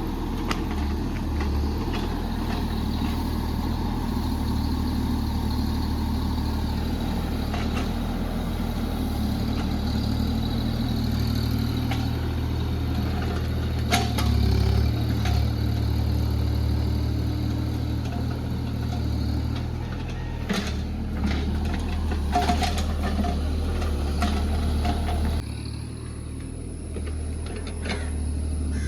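JCB JS30 Plus mini excavator's diesel engine running steadily, with a few sharp knocks along the way; the sound drops a little near the end.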